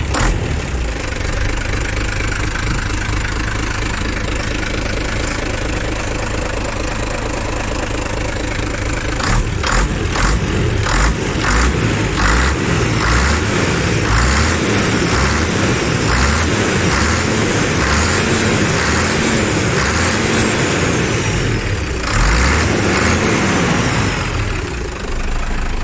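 Renault R340 truck's six-cylinder diesel running just after being started on a freshly timed inline injection pump, which shows the pump timing is right. It runs steadily at first, then from about nine seconds in the sound turns rougher and pulses, its pitch swelling up and down.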